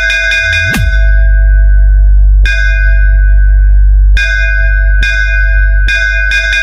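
Loud DJ sound-check competition track: bell-like chimes struck in quick runs and single hits, each ringing on, over a continuous heavy bass drone. A short swoop in the bass comes about a second in.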